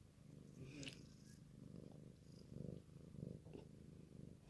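Domestic cat purring faintly, a low, steady rumble that swells and eases with her breathing.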